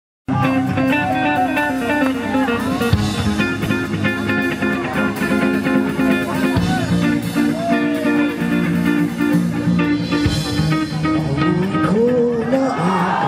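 A live rock band playing: electric guitar leading over bass guitar and drums through stage amplifiers, with bent guitar notes. The music starts suddenly just after the start, and crowd noise swells over it near the end.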